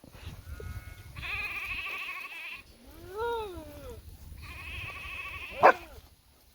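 Lambs bleating: two long, quavering high bleats, with a lower bleat between them that rises and falls in pitch, and a short, loud cry near the end.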